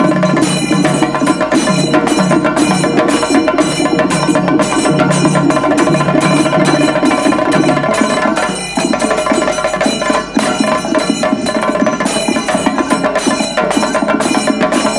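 Traditional percussion music: fast, dense drum strokes with a held, steady tone over them.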